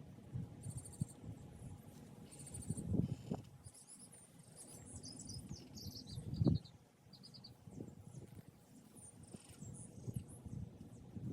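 Soft rustling and a few dull thumps of hands digging in soil and pulling potato plants and grass in a raised bed, loudest about three and six and a half seconds in. Small birds chirp and trill in the background.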